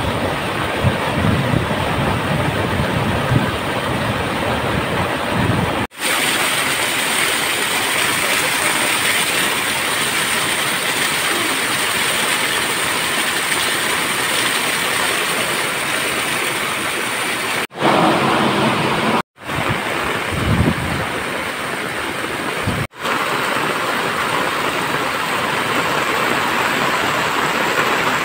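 Rushing floodwater and heavy rain: a muddy torrent surging over rocks, then pouring rain, then water cascading down stone steps. A loud, steady rushing noise, deep and rumbling at first and brighter and hissier from about six seconds in, broken by short sudden dropouts where one clip cuts to the next.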